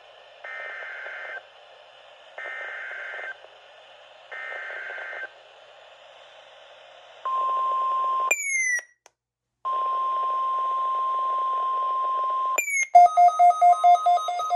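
NOAA Weather Radio emergency alert over a receiver's speaker: three buzzy SAME digital header bursts about two seconds apart, then the steady 1050 Hz warning alarm tone. The tone is cut by a short falling chirp and a brief dropout, and near the end a falling chirp is followed by rapid loud beeping.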